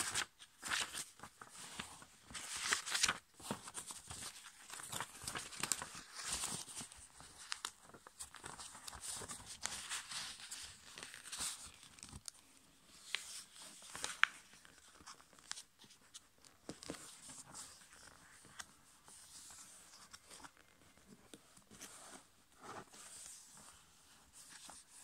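A sheet of A5 copy paper being handled and folded by hand, with irregular rustling and crinkling as the folds are pressed flat, broken by short sharp strokes, the loudest about fourteen seconds in.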